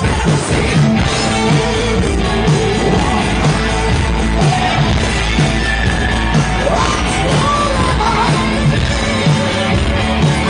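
A hard rock band playing live at full volume, with distorted electric guitars, bass and drums on a steady driving beat and a voice singing over it.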